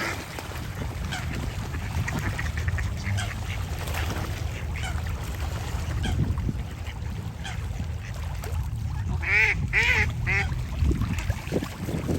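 Ducks quacking: scattered short calls, then three loud calls in quick succession about nine to ten seconds in.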